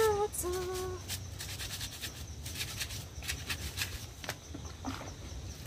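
A woman sings two short held notes, then comes a run of quick, scratchy scrubbing strokes with a few knocks as she washes her shoes by hand.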